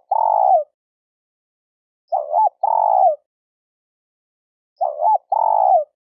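Spotted dove cooing: each call is a short hooked note followed by a longer coo that falls at its end, repeated about every two and a half seconds, with the end of one call at the start and two full calls after it.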